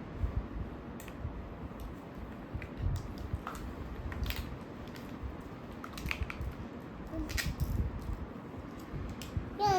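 Plastic toy fruit and vegetable pieces being handled: scattered small clicks, taps and rustles. A child makes a short vocal sound at the very end.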